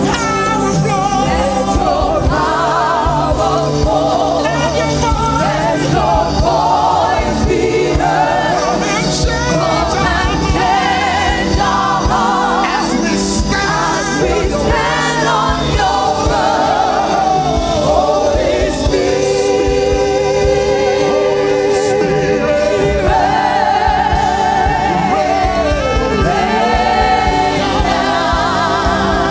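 Gospel choir singing a worship song with instrumental backing and drums.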